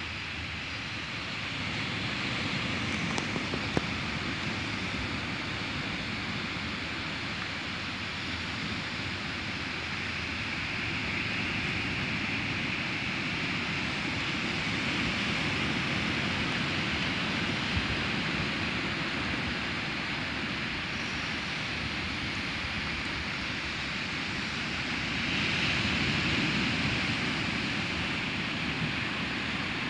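Small waves breaking and washing up a sandy beach: a steady rushing surf that swells and eases several times, loudest late on.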